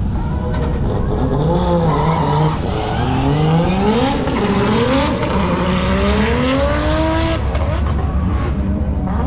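A car engine revving hard: its pitch climbs, drops back and climbs again several times before falling away about seven seconds in, with tyre squeal over it. A steady low rumble of engines runs underneath.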